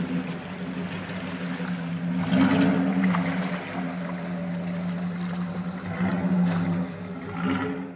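Jeep Grand Cherokee's 5.2-litre V8 running at low revs as it crawls through a muddy rut, its steady low engine note swelling twice, about two and a half seconds in and again around six seconds. Mud and water slosh under the tyres.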